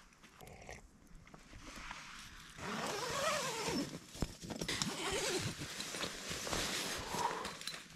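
Rustling of tent fabric and a mummy sleeping bag as a person crawls into a small tent and wriggles into the bag, starting about two and a half seconds in after a quiet stretch.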